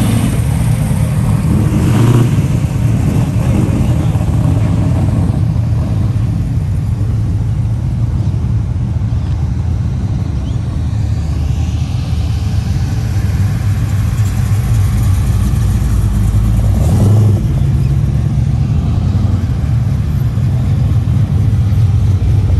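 Engines of modified street cars rumbling as they drive slowly past one after another, with short throttle revs about two seconds in and again near the end.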